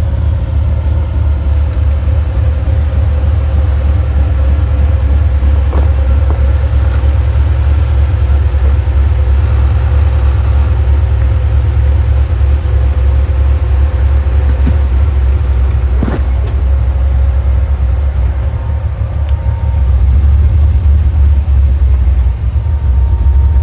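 Jeep Comanche pickup crawling along an off-road trail: a steady low engine and drivetrain rumble, with a couple of brief knocks as it works over the ground.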